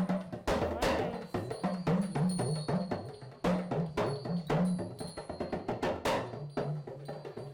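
Talking drum playing a quick rhythm of sharp strikes, its low note stepping up and down in pitch from stroke to stroke.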